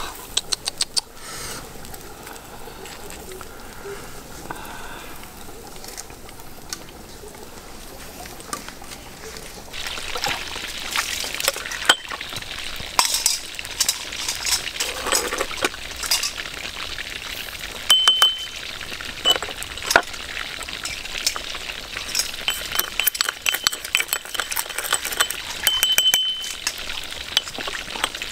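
Meat sizzling and crackling on a charcoal grill, then a spoon clinking and scraping against a ceramic cup as a dipping sauce is stirred, with sharp clicks and short ringing tones through the second half.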